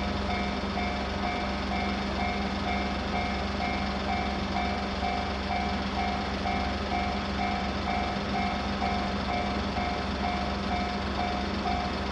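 Japanese railway level-crossing alarm ringing its electronic bell tone over and over, about twice a second and evenly, with a steady low hum underneath.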